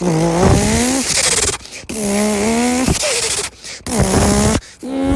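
Toyota Supra's exhaust blipped four times, a raspy buzzing tone that dips and rises slightly within each blip, with short gaps between.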